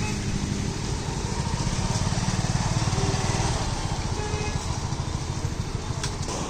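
Motorcycle engine running steadily while riding, a little louder about halfway through.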